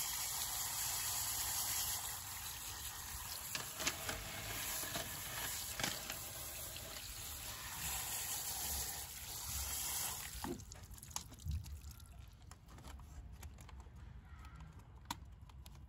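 Steady hissing and trickling of liquid that drops away about ten seconds in, leaving faint scattered clicks and crackles.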